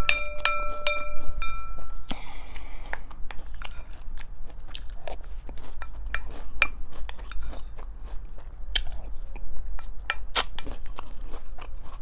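Crunchy cereal being chewed close to the microphone: a steady run of small, irregular crunches. In the first two seconds a ringing chime-like tone fades out.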